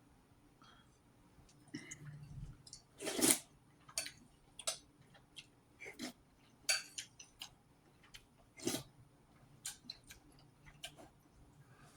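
Scattered light clicks and taps of eating at the table, such as utensils against a bowl, coming irregularly about once a second, the loudest a little after three seconds in.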